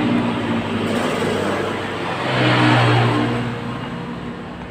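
A passing motor vehicle's engine, growing louder to a peak about two and a half seconds in and then fading away.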